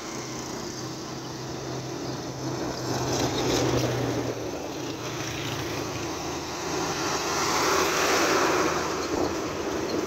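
Fully loaded trucks passing close on a road: diesel engines running with a steady low hum and tyre and engine noise swelling as each truck goes by, loudest about eight seconds in as a heavy multi-axle truck passes.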